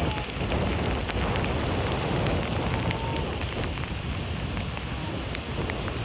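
Wind buffeting the microphone with a deep rumble, over the steady rush of surf breaking on a rocky shore.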